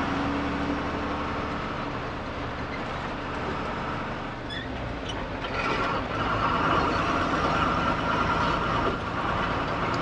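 A truck's engine running and road noise, heard from inside the cab of the moving truck. A higher steady whine joins about halfway through.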